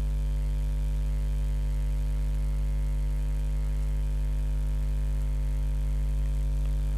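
Steady electrical hum, a low buzz with a stack of higher tones above it, unchanging throughout: mains hum in the recording.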